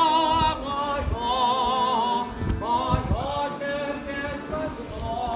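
Male street singer performing in an operatic style, holding long notes with a strong vibrato, with an accordion accompanying him.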